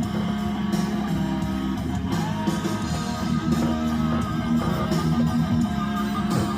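Music with electric guitar and bass guitar, a wavering lead line coming in about two seconds in.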